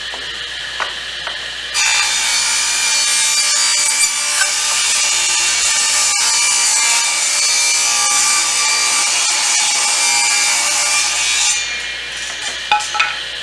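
Ridgid R4520 10-inch table saw running, its blade cutting through a board for about ten seconds. Near the end it drops back to running free, with a few light clicks.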